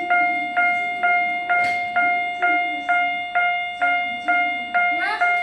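Level crossing warning bell on a model crossing ringing steadily, a pitched ding about twice a second, each ring fading before the next.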